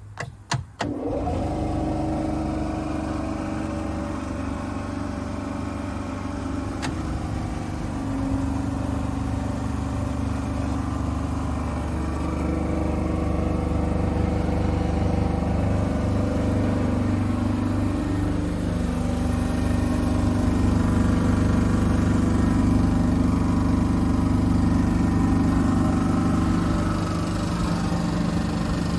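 Kaeser oil-free piston compressor starting up: a few clicks in the first second, then the motor and pump run steadily, growing slightly louder as it keeps running.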